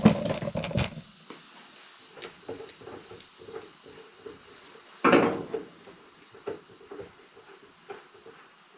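Clicks and clattering knocks from hands handling an air rifle's moderator and barrel end while it is unscrewed, then one louder knock about five seconds in, with faint irregular ticking in between.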